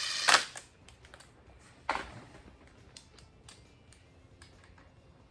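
Hand tools working on an LS1 oil pump's bolts: a short rasp at the start, a sharp metallic click about two seconds in, and scattered light ticks of metal handling.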